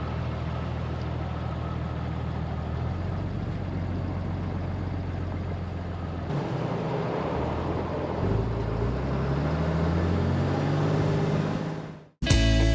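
Diesel truck engine running steadily, then accelerating with a rising pitch from about eight seconds in before fading out. Guitar music starts at the very end.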